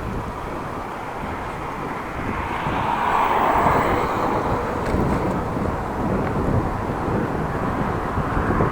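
Wind buffeting the microphone and tyre and road noise while riding a bicycle on a city street, with a swell of noise about three to four seconds in, as of a vehicle passing.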